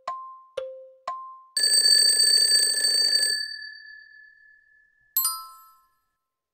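Countdown timer sound effects. Three ticks alternating between a high and a low tone, twice a second, are followed by a bell ringing for about two seconds and then fading as time runs out. A short bright chime sounds about five seconds in.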